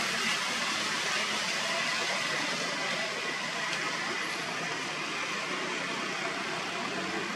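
Steady outdoor background noise: an even hiss, strongest in the upper range, with no distinct events.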